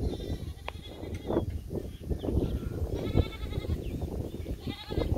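Goat bleating three times, quavering calls at the start, about three seconds in and near the end, over a low rumble of wind.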